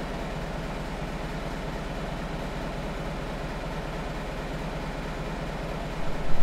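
Tractor diesel engine running steadily while reversing a wagon slowly into place. A few louder knocks come in near the end.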